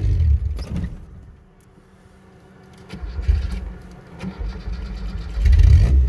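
Lada Niva engine on a sand climb: its sound dies away almost to nothing about a second in, then after a couple of clicks it comes back about three seconds in and revs up loudly near the end, as when the engine stalls and is restarted.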